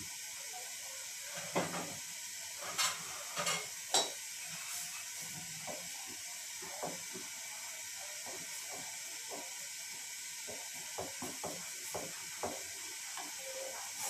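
Steady hiss of a gas stove burner under an aluminium pot of dal, with a spoon knocking sharply against the pot a few times in the first seconds, then lighter, scattered taps and scrapes as it stirs.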